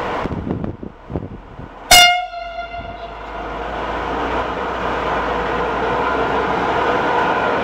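SNCF Fret BB 37000 electric freight locomotive sounding one short, loud horn blast about two seconds in. The rumble of the approaching train then grows steadily louder.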